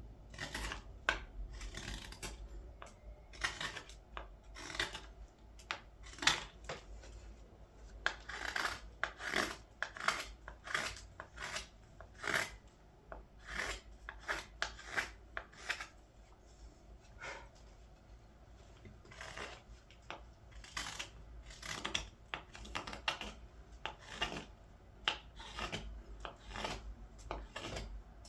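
Knife cuts shaving green wood from a ladle being hand-carved: short scraping slices, roughly one or two a second, irregular, with a quieter pause partway through.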